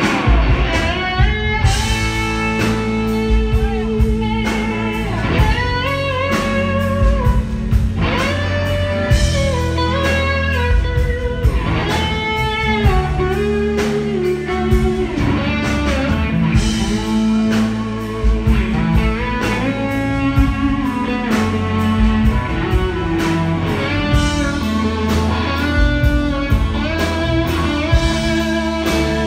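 Live rock band playing an instrumental passage: an electric guitar lead with bent, sliding notes over bass, drums and sustained chords, with no vocals.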